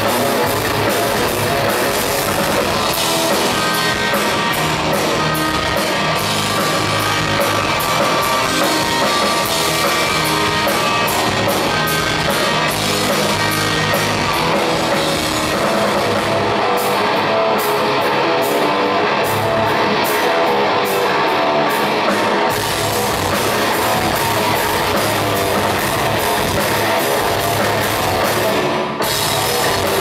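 Progressive metal band playing an instrumental passage: amplified electric guitar, electric bass and drum kit with steady cymbal strikes, loud and continuous throughout.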